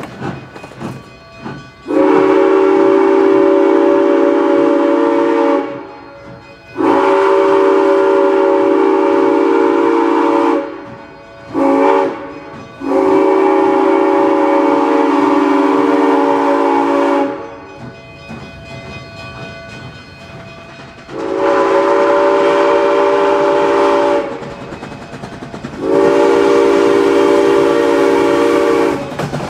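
Southern Pacific six-chime steam whistle on a steam locomotive sounding a chord of several steady tones: long, long, short, long (the grade-crossing signal), then after a pause two more long blasts.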